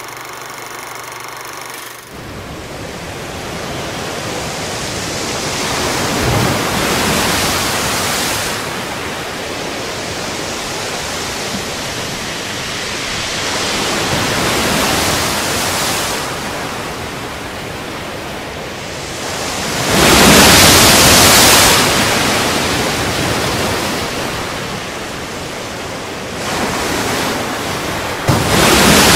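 Sea surf: waves rolling in and breaking in slow surges every several seconds, the loudest about two-thirds of the way through. A steady whirring hum runs for the first two seconds and cuts off.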